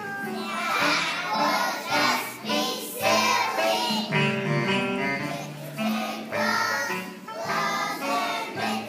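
A kindergarten class singing a song together as a group.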